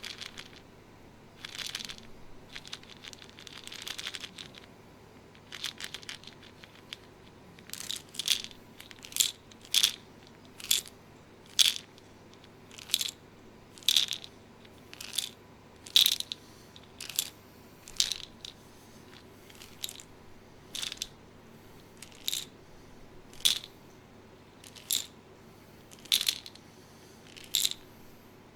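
A person making a series of short, crisp crunching clicks. They are sparse and uneven at first, then settle into a steady rhythm of about one and a half a second from about eight seconds in.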